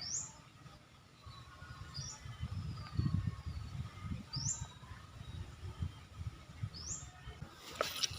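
A bird repeating a short, high, rising call four times, about every two seconds, over a low fluttering rumble. A sharp click sounds near the end.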